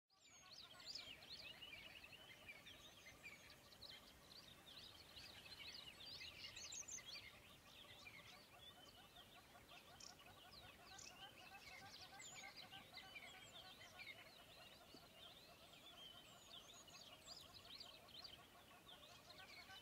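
Faint, busy chorus of many birds chirping, with no break.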